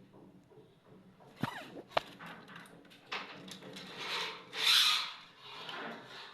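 Electrical wires being drawn through conduit with a fish spring, making scraping and rubbing noises. There are two sharp clicks early on, then a run of dragging scrapes that is loudest a little after the middle.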